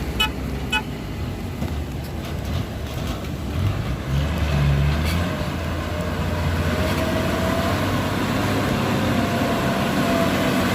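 Heavy diesel engine of earth-moving machinery running steadily; about four seconds in, it labours harder and its note strengthens.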